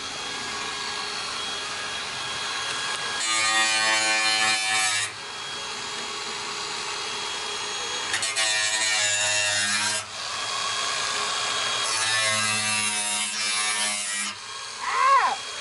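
Cordless angle grinder running and cutting into the sheet-metal edge of a car's wheel arch. The pitch and load rise in three heavier cutting passes, about three, eight and twelve seconds in.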